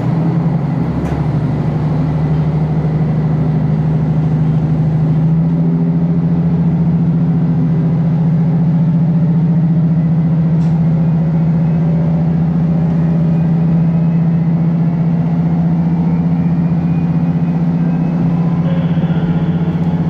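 KiHa 54 diesel railcar's engine running steadily under power as the train pulls away from a station, heard from inside the car. A faint rising whine joins it in the second half as the train gathers speed.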